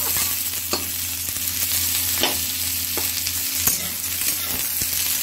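Sliced onions frying in hot oil in a kadhai on medium flame, sizzling steadily, while a spatula stirs them and scrapes against the pan a few times.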